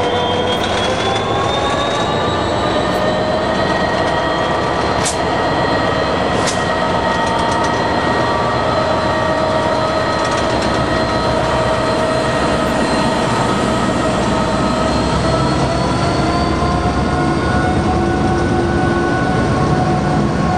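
NSW 82 class diesel-electric locomotives, with EMD two-stroke diesel engines, working past at close range on a coal train. It is a loud, steady multi-tone engine note that rises a little in pitch now and then. Two sharp clicks come about five seconds in and again a second and a half later.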